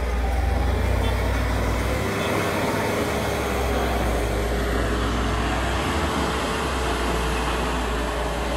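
Vehicle engine running steadily during a mud recovery, with heavy wind rumble on the microphone. A steady whine joins about four seconds in and holds.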